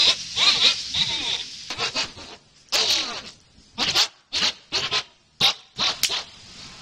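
Young women's voices chattering in gibberish, breaking into a string of short, separated bursts over the last few seconds.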